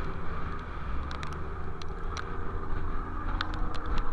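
Steady low rumble of a fishing boat's engine mixed with wind and rough sea, with scattered sharp ticks.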